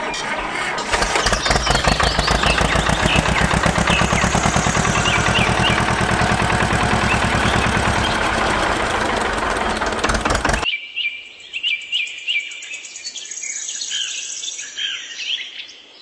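A small engine running with a rapid, even chatter of pulses while birds chirp over it. About ten seconds in, the engine sound cuts off abruptly, leaving only birdsong.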